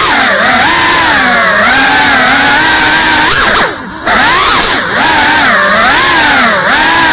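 Motors and propellers of a GEPRC CineLog 35 cinewhoop drone whining in flight, heard from its onboard camera, the pitch rising and falling with the throttle. A little under four seconds in, the whine drops away for about half a second as the throttle is cut, then comes back.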